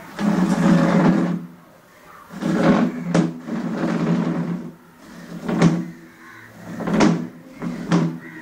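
A plastic armchair scraping and knocking on a tiled floor as a small child pushes at it: two longer scrapes in the first half, then four sharp knocks.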